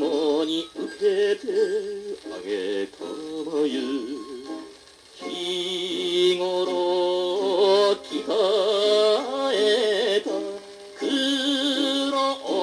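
Male singer with a wide, wavering vibrato over instrumental backing, playing from a vinyl record on a turntable; the record is a 1959 Japanese popular-song single. The voice drops away briefly about five seconds in and then comes back.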